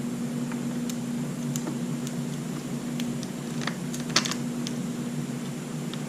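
Scattered light clicks and taps of small parts and hand tools being handled during reassembly, the sharpest about four seconds in, over a steady low hum.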